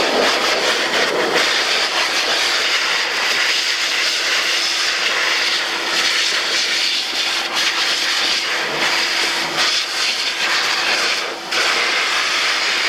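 AIIYME SH-168 pet grooming dryer blowing air steadily: a loud, even rushing hiss with a faint steady hum beneath it. The sound dips briefly about eleven seconds in.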